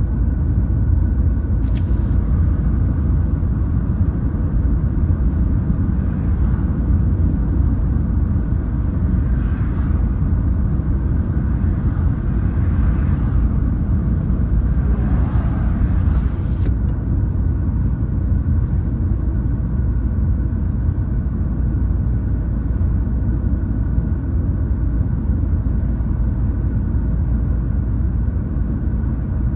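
Steady low road and engine rumble heard from inside a car's cabin at highway speed. Oncoming traffic, including a lorry, swells past a few times in the middle.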